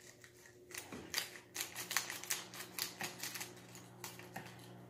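Scissors cutting open a thin plastic bag: a quick, irregular run of snips and plastic crinkles, starting about a second in.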